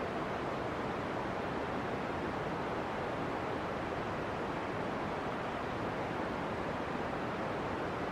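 Steady, even rushing hiss of steam jetting out of a volcanic fumarole vent.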